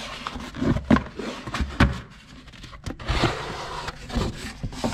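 Cardboard box being handled and its lid flap opened: scraping and rubbing of cardboard with several knocks.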